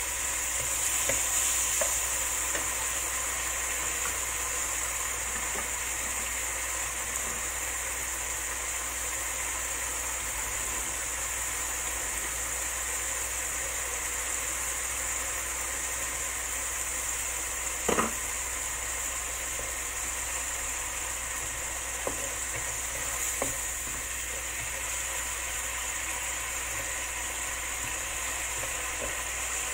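Eggplant frying in a wok over a gas burner: a steady sizzle that swells briefly about a second in as the contents of a bowl are poured into the hot pan. A wooden spatula stirs and now and then knocks against the wok, once sharply about two-thirds of the way through.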